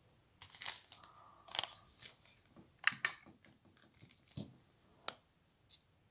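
Close handling noises from hands working at a fly-tying bench: scattered clicks, taps and rustles, the sharpest about three seconds in and another about five seconds in.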